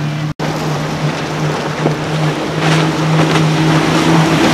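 Outboard motors of a center-console boat running at speed: a steady engine tone over the rush of water and wake spray, with a few sharp splashes around the middle. The sound cuts out very briefly about a third of a second in.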